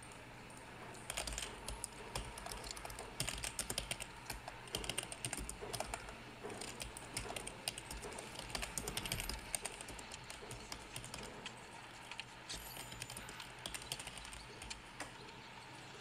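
Irregular small clicks and rattles of a screwdriver working the screws of a BMW F10 central plastic air-vent assembly, with the plastic housing being handled; the clicks come thickest in the first half and thin out toward the end.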